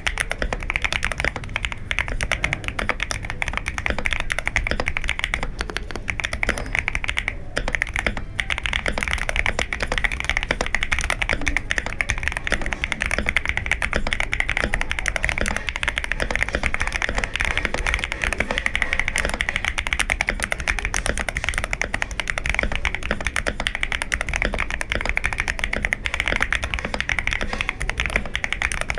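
Fast, continuous typing on an Akko ACR67 mechanical keyboard with Akko Jelly Pink linear switches: a dense run of keystroke clacks, with a brief break about seven and a half seconds in.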